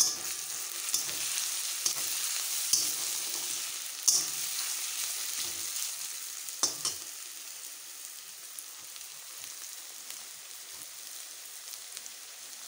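Onions, green chillies and freshly added chopped garlic sizzling in hot oil in a steel kadai. A metal spatula scrapes and clinks against the pan several times in the first seven seconds, then a steady, quieter sizzle.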